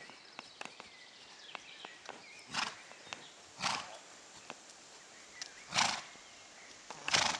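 A ridden horse snorting, four short forceful blows out through the nostrils a second or two apart, over faint hoofbeats on gravel.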